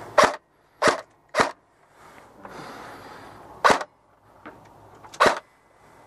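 Airsoft gun fired in single shots: five sharp cracks, three in the first second and a half, then two more about two and four seconds later.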